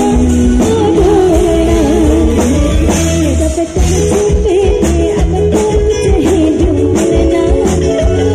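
Live band playing a song: a woman singing through a microphone over electric bass, drums and a melody line, with a steady beat.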